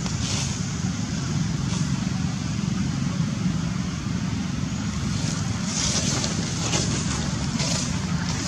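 Steady low outdoor rumble, with a few short hissing bursts higher up near the start and again in the last few seconds.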